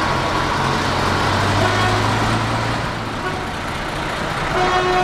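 A vintage Ikarus bus driving off at low speed, its engine a steady low drone that fades after about three seconds as the bus moves away. Near the end a horn sounds briefly in one steady note.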